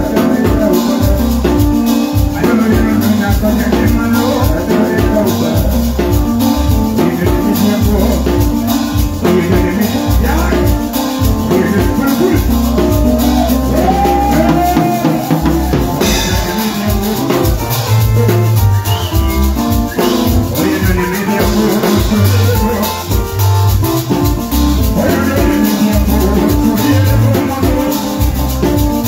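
Live band music with a steady drum beat and shakers.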